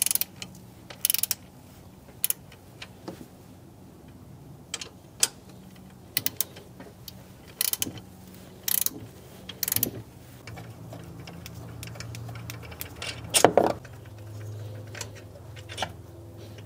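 Sharp metal clicks and clinks, roughly one a second, from a breaker bar and 15 mm socket loosening and turning out the alternator mounting bolts. One louder clunk comes a little past two-thirds of the way through.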